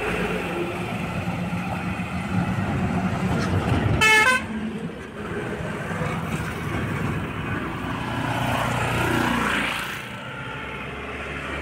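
Road traffic passing close by, motorcycles and trucks running, with one short vehicle horn toot about four seconds in, the loudest sound. The traffic noise drops somewhat near the end.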